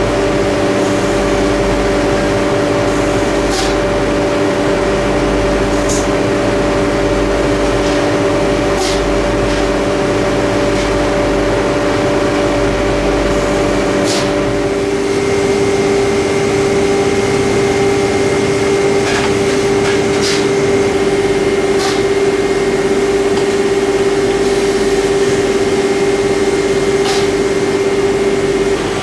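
Steady, loud hum of spray-painting booth machinery and an overhead conveyor, with several steady tones and scattered light clicks. About halfway through, the pitch mix of the hum shifts.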